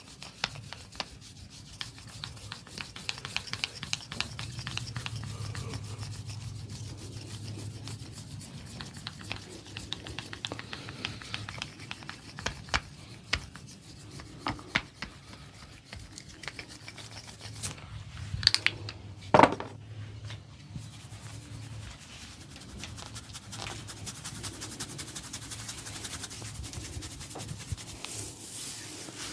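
Barber's hands rubbing and kneading an oiled scalp and hair, a steady rubbing with many small crackling clicks. About two-thirds of the way through come two much louder sharp snaps, the second the loudest.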